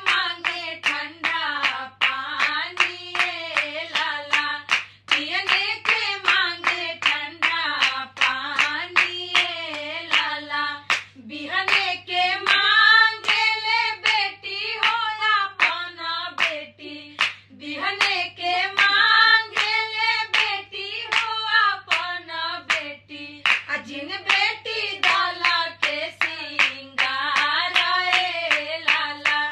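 Women singing a Bhojpuri wedding folk song (a dwar puja geet) together in one melody line, unaccompanied, keeping time with steady hand claps on the beat.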